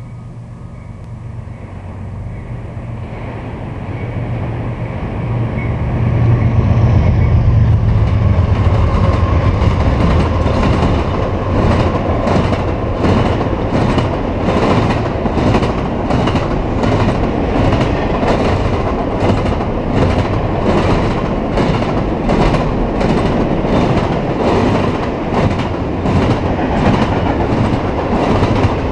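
CSX diesel locomotives growing louder as they come by, with a low engine drone that peaks about six seconds in. Then double-stack intermodal cars roll past with a steady rhythm of wheel clicks.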